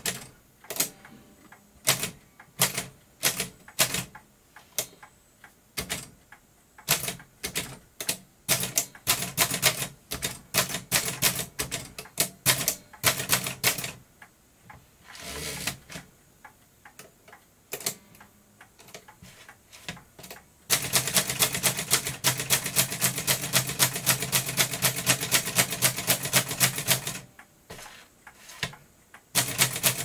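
Keys of an 1892 Chicago No. 1 type-sleeve typewriter being typed, sharp irregular clacks at a varying pace. About halfway there is a brief sliding carriage return. Later comes a dense run of rapid clatter lasting about six seconds.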